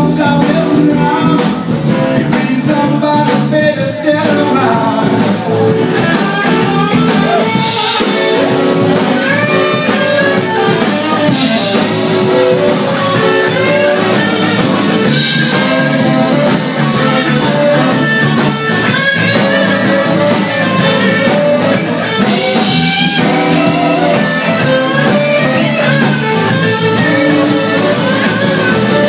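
Live blues band playing: electric guitars, two saxophones, bass and drums.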